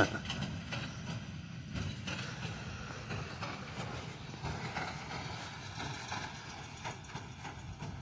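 John Deere 6215R tractor pulling a John Deere 1433 four-string small square baler through hay: the engine runs steadily under the baler's regular mechanical clatter, slowly getting quieter as it moves away.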